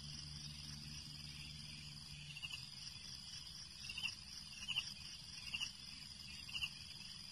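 Steady high trilling of insects, like crickets, with a separate short chirp repeating about once a second from about two and a half seconds in. A faint low hum underneath stops after about two and a half seconds.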